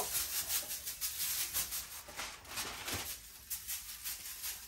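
Salt being shaken out of a container onto raw meat in a foil-lined pan: a rapid, irregular rattle of many quick shakes, growing fainter toward the end.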